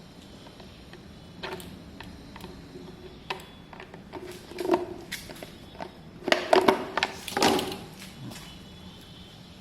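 Hands working on the car's air-intake parts: scattered clicks and knocks, with a louder cluster of clattering and scraping between about six and eight seconds in.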